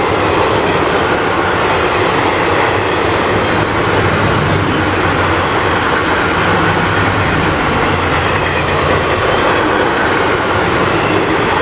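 Freight train of enclosed double-deck car-carrier wagons rolling past, a steady loud noise of wagon wheels running on the rails.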